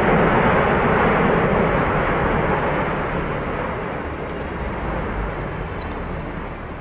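Steady rushing noise from the erupting Cumbre Vieja volcano, loudest at first and slowly dying down.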